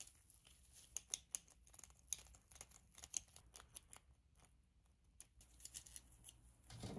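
Faint handling noise from a small 3D-printed clutch assembly, a metal plate bolted to a red ABS housing, being turned over in nitrile-gloved hands: scattered light clicks and taps of hardware and plastic. A short louder scrape comes near the end.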